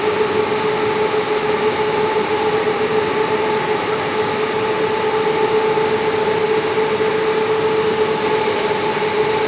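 Steady, loud drone of running plant machinery: an even rushing noise with a constant mid-pitched hum tone over it.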